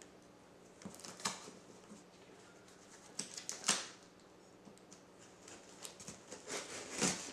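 Scattered light scrapes, taps and rustles of hands working at a large cardboard shipping box, loudest a little over a second in, near four seconds in and just before the end.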